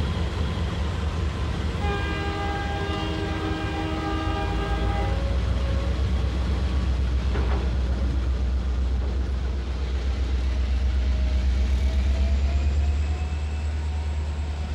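Australian National DL-class diesel locomotive running past close by with a heavy low rumble that swells as it passes. Its multi-note air horn sounds one long blast of about three and a half seconds, starting about two seconds in. A single clank comes about halfway through.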